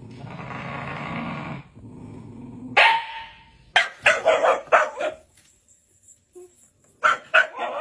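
A dog barking: a rough, noisy sound for the first second and a half, a single sharp bark about three seconds in, then a quick run of barks, and another quick run near the end.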